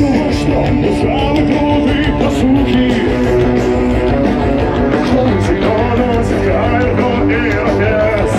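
Live rock band playing loudly over outdoor festival speakers, with guitars and a singer, steady and unbroken.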